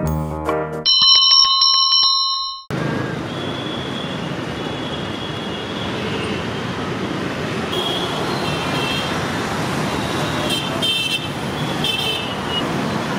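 A bright ringing chime ends the intro music about a second in and cuts off sharply. Steady city street traffic noise follows, with short vehicle horn beeps at intervals.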